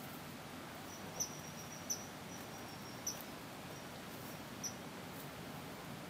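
Common kingfisher giving short, high, thin call notes, four of them spaced unevenly over a few seconds, joined by a faint high trill early on, above a steady background hum.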